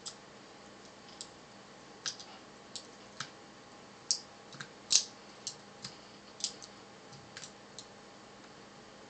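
Irregular small metallic clicks and taps as a Torx screwdriver works the screws out of a hard disk drive's metal top cover, the sharpest click about halfway through.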